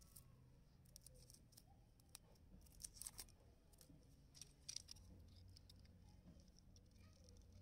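Near silence with faint small clicks and rustles of a coaxial cable and its copper braid and wire being handled, a denser patch of clicks about three seconds in and again near five seconds.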